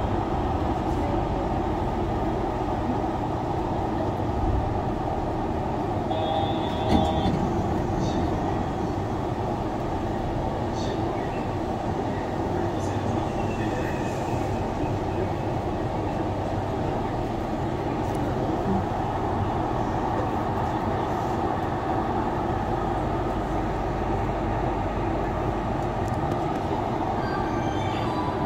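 Yurikamome rubber-tyred automated train running, heard from inside the car: a steady rumble throughout, with a brief tone and a single short knock about six to seven seconds in.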